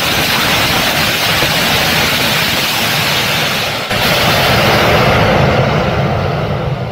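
Aerospike solid rocket motor burning HTPB composite propellant, firing on a static test stand: a loud, steady roar of exhaust noise. It dips briefly about four seconds in and begins to ease near the end as the regressive burn tails off.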